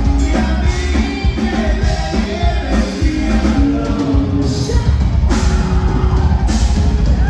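Live conjunto band playing loud dance music with singing, over a strong bass and drum beat.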